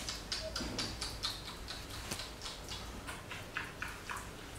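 A quick, even run of short smacking clicks, about four a second: lips smacking, as in kissing sounds or a macaque's lip-smacking while grooming.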